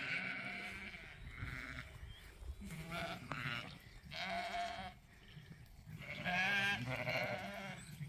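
Zwartbles sheep bleating repeatedly as the flock hurries after a feed bucket, several calls of about a second each, one after another with short gaps.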